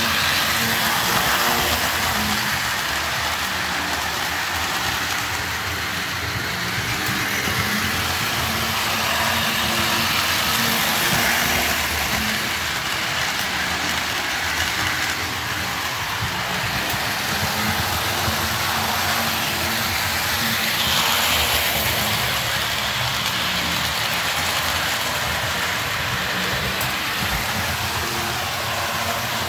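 Lionel Santa Fe 2333 F3 model train locomotive running around its track loop, a steady noise from its electric motor and wheels on the rails.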